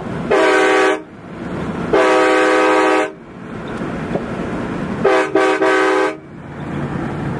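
Nathan Airchime K5LA five-chime air horn being tested as a freshly installed unit, sounding a full chord. It gives a short blast, then a longer blast of about a second, then a few quick toots near the end. The steady road noise of the moving vehicle fills the gaps between blasts.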